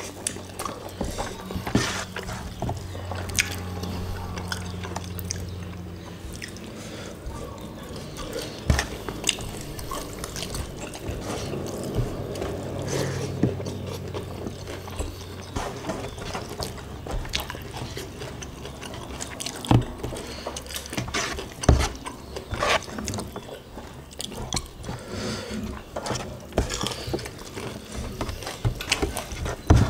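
Close-miked eating sounds of two people eating rice by hand: wet chewing and lip-smacking, with many sharp clicks and taps as fingers gather rice against a metal tray.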